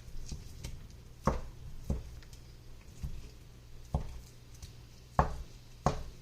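A cooking utensil knocking and tapping against a skillet as ground beef is broken up while browning: about six sharp knocks at uneven intervals, the loudest a little after five seconds in, over a steady low hum.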